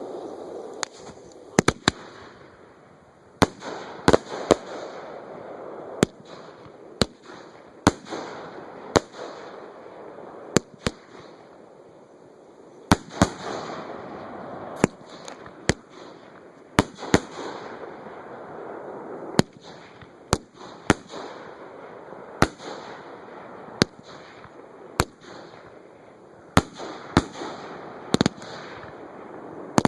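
Fireworks show at close range: a string of sharp bangs from shells, roughly one every second or two at uneven spacing, over continuous hissing and crackling.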